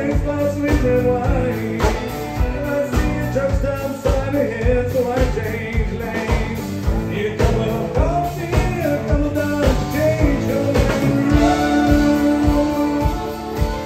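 Live country band playing: a drum kit keeps a steady beat under electric and acoustic guitars and a bowed fiddle, with a man singing lead.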